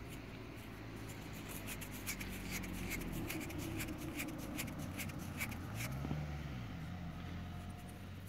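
Thumb rubbing the crusted face of a freshly dug green-patinated coin, a rapid dry scratching of skin and grit on metal as the dirt is worked off to reveal the design; the scratching thins out after about six seconds.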